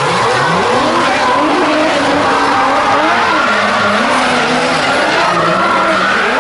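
Two drift cars sliding side by side through a corner in a tandem run, one of them RB26-engined, their engines revving up and down with tyres skidding and squealing throughout.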